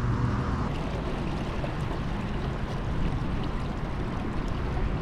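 Water rushing and gurgling along the hull of a fishing kayak under way, a steady wash of noise.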